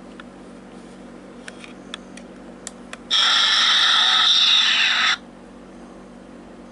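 A few small clicks, then a loud electronic sound effect from a Klingon Bird of Prey toy's built-in speaker, lasting about two seconds and cutting off suddenly.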